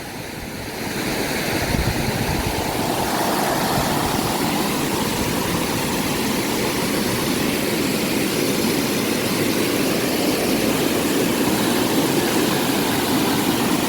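Rushing water of a mountain river, a steady loud rush that swells over the first couple of seconds and then holds.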